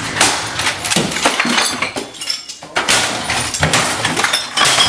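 Someone smashing a computer desk setup: a run of loud, irregular crashes and bangs as a monitor and other desk items are struck and knocked over, with clattering and clinking in between.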